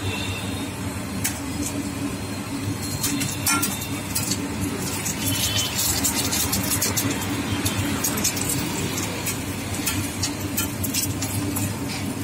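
Metal utensils clinking and scraping on a large iron tawa as egg is spread over a frying paratha, in quick irregular clicks that are busiest in the middle, over a steady low rumble of street background.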